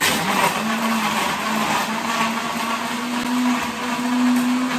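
Countertop electric blender switched on and running at full speed, crushing ice with milk and Oreo cookies. It starts suddenly, and its motor hum rises briefly in pitch before holding steady.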